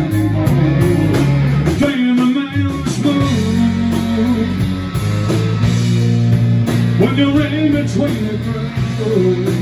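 Live rock band playing: electric guitars, bass and drums together.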